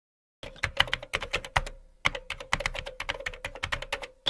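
Computer keyboard typing: quick key clicks, several a second, with a short break about two seconds in.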